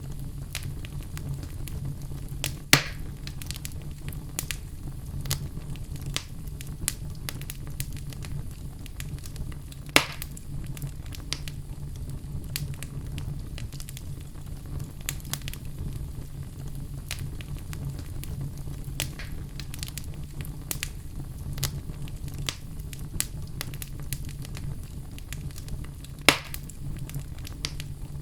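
Wood fire burning in a fireplace: logs crackling with many small snaps over a steady low rumble. Three louder pops stand out, about three seconds in, at ten seconds, and near the end.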